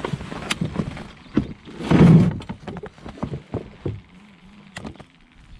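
Scattered clicks and knocks of a baitcasting rod and reel being handled in a small boat, with a louder rushing noise about two seconds in.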